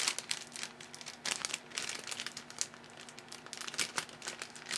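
Crinkling and rustling of packaging being handled in irregular crackles, over a faint steady hum.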